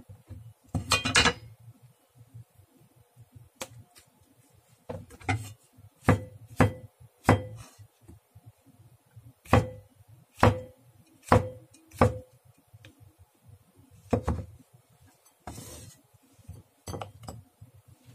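Cleaver chopping through button mushrooms onto an end-grain wooden cutting board: a longer clatter about a second in, then about a dozen sharp, unevenly spaced knocks of the blade on the board, many with a short ring.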